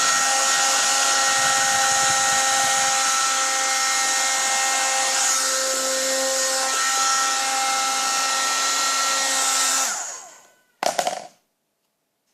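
Hair dryer blowing steadily with a high whine, switched off about ten seconds in and winding down, followed by a single sharp knock.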